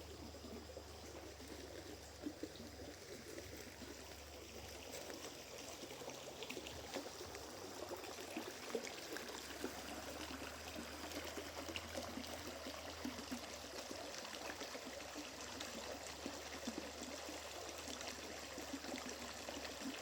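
A small stream of water running steadily over stones, a continuous trickling flow.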